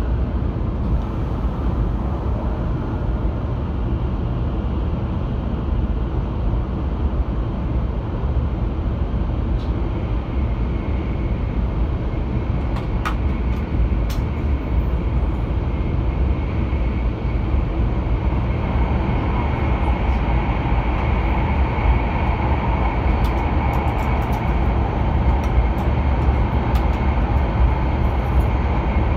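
An 800-series Shinkansen train running, heard from inside the passenger cabin: a steady deep rumble, with a higher hum that grows louder about two-thirds of the way in.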